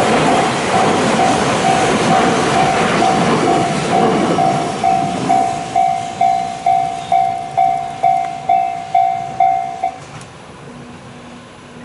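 Freight train rolling over a level crossing, its noise fading over the first few seconds. Meanwhile the Japanese crossing alarm rings a repeated electronic ding, a bit over two a second, and stops about ten seconds in.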